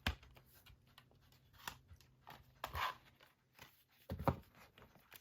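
Cardboard collector's box being handled: scattered light taps and knocks, a short rustle a little before the three-second mark, and a few louder thumps about four seconds in.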